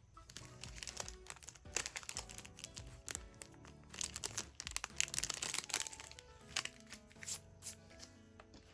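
Plastic packaging crinkling and tearing as it is handled and opened, in quick runs of crackles that are densest through the middle and thin out toward the end, over background music.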